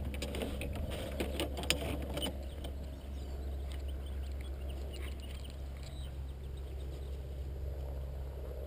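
Golf clubs clinking and rattling against each other in a golf bag as one is pulled out, for about the first two seconds, then a few faint clicks, all over a steady low rumble.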